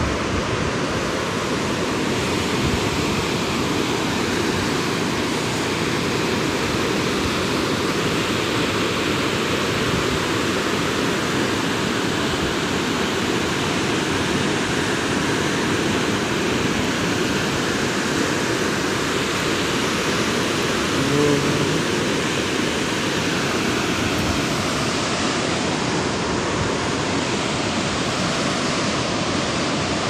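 Steady rushing roar of the Marsyangdi river's rapids churning white over boulders. A brief low pitched sound cuts in just over two-thirds of the way through.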